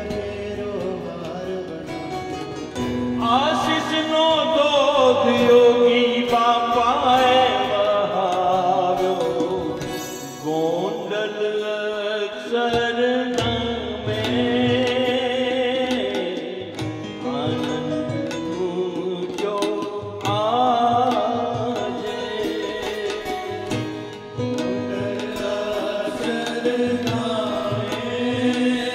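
Devotional song: a voice sings a drawn-out, gliding melody over instrumental accompaniment.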